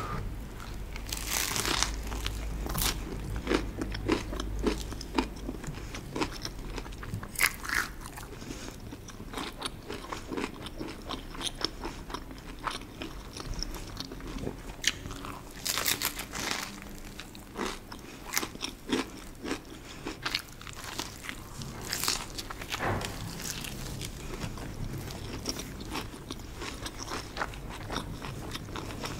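Close-miked eating sounds: biting into and chewing crusty stuffed bread filled with cheese and mushrooms, the crisp crust crunching and crackling in many irregular small snaps.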